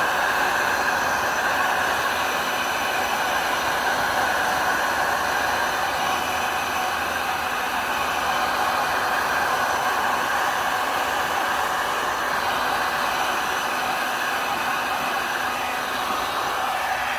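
Heat gun blowing hot air steadily, its even rushing noise unbroken throughout.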